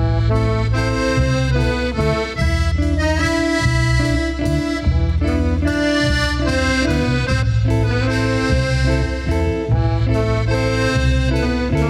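Cumbia band playing an instrumental intro: accordion carrying the melody over a steady bass line and rhythm section.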